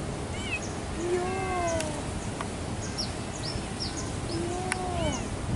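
Small black kitten meowing twice, about three seconds apart, each meow rising then falling in pitch. Faint bird chirps sound throughout.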